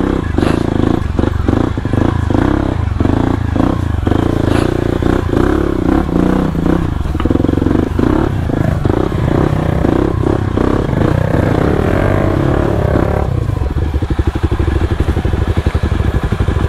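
Yamaha WR155 single-cylinder motorcycle engine running under load on a rough trail, with frequent knocks and clatter. About thirteen seconds in it settles into lower revs with an even, pulsing beat.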